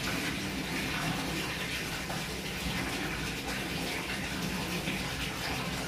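Water running steadily from a tap, an even rushing sound.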